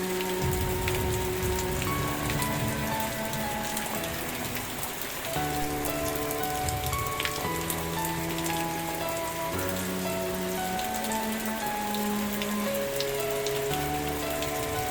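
Steady rain with scattered drop ticks, and a slow, soft melody of held notes changing about once a second underneath.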